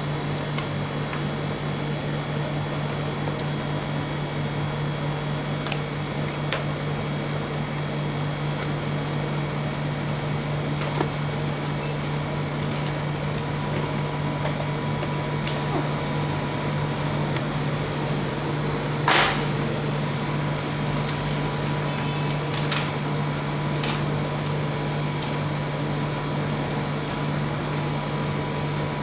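Steady low machine hum, typical of a rolled-ice-cream cold plate's refrigeration unit running. Over it come scattered light clicks of wrapped candy canes being handled and set down on the metal plate, with one sharper click about two-thirds of the way through.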